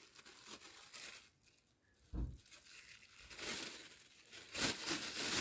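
Thin plastic bag crinkling and rustling as it is handled, in bursts, loudest near the end. A brief low thump about two seconds in.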